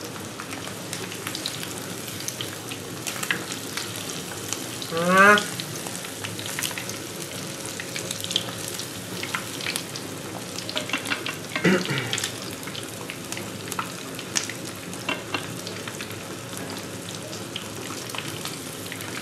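Breaded turkey breast pieces shallow-frying in hot oil in a pan: steady sizzling with many small crackles and spits of oil.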